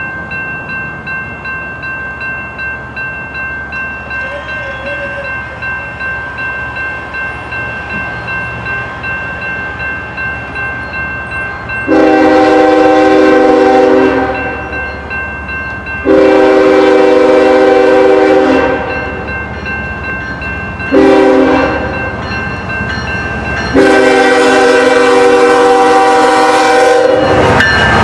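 Locomotive air horn sounding the grade-crossing signal, two long blasts, a short one and a final long one, over a steadily ringing crossing bell. The train starts to rumble past near the end.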